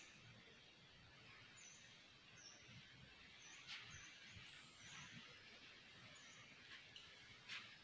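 Near silence: faint room tone, with a couple of faint brief clicks.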